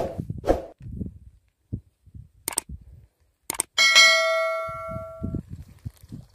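Subscribe-button animation sound effect: two sharp clicks about a second apart, then a bright notification-bell ding that rings on and fades over about a second and a half.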